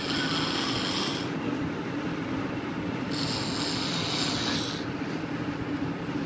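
A man snoring, with rasping breaths that come roughly every three and a half seconds, over the steady hum of a moving vehicle's cabin.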